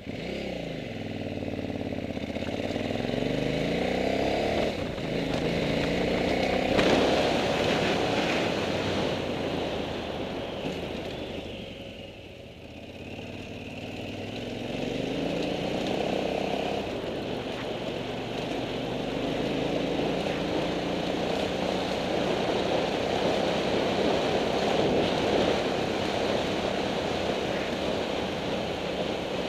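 Motorcycle engine under way on a gravel climb. It rises in pitch as it pulls through the gears over the first several seconds, eases off about twelve seconds in, then picks up again and runs steadily.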